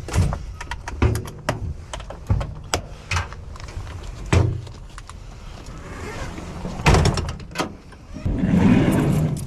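Clicks, taps and knocks of small metal lock parts being handled and fitted together as a rekeyed Kwikset lock is reassembled, with a louder stretch of handling near the end.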